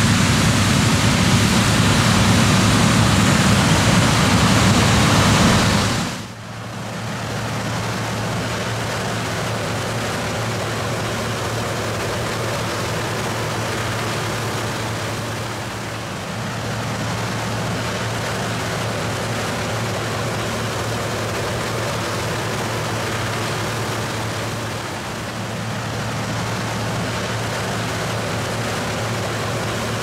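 Steady engine and machinery noise of a John Deere combine and tractor harvesting corn. It is loud with a heavy low rumble at first, then drops suddenly about six seconds in to a steadier, quieter noise with a constant low hum.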